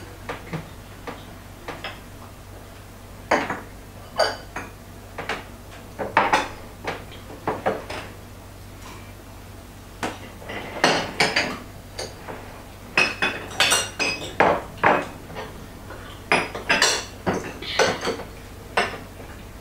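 Spoons and forks clinking irregularly against small dessert plates and tea glasses on saucers as several people eat at a table. The clinks are short and sharp, some in quick clusters.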